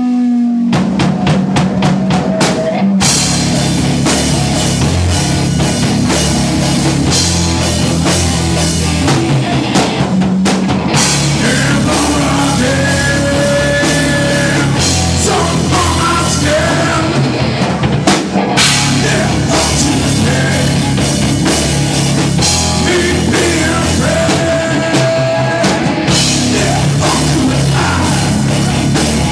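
Rock band playing live, heavy and loud, with a drum kit: the drums start under a second in and the full band comes in about three seconds in.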